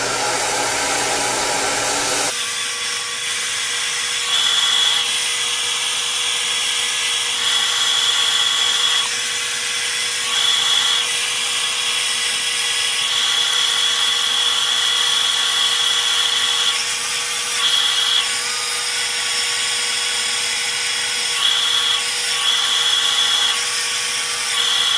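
Handheld hair dryer running steadily, a loud blowing hiss with a constant motor tone and a high whine that comes and goes as the dryer is moved along the round brush. Its tone shifts about two seconds in.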